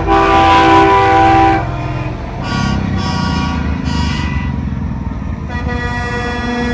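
Semi-truck air horns blasting: one long chord-like blast at the start, a few shorter toots in the middle, and another horn sounding near the end, over the low rumble of passing diesel trucks.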